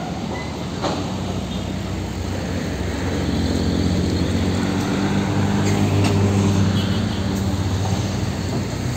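Heavy diesel trucks driving past close by: a container truck, then a fuel tanker semi-trailer truck whose engine hum swells and peaks past the middle as it goes by. Tyre and traffic noise run underneath.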